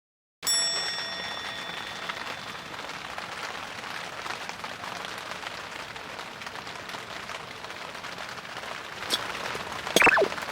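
Steady heavy rain falling and pattering on surfaces. It opens with a brief ringing tone that fades within about two seconds, and a few sharp clicks and a short squeak come near the end.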